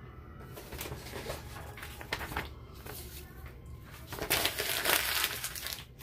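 Sheets of printer paper rustling as they are handled, loudest about four seconds in when a page is lifted and held up.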